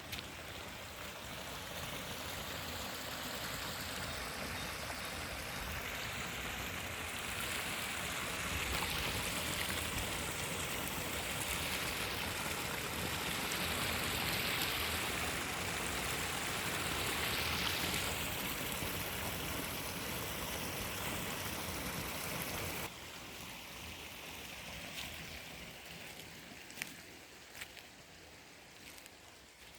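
Running water rushing steadily, like a stream. It swells toward the middle, drops off abruptly about two-thirds of the way through, and continues more quietly with a couple of faint clicks.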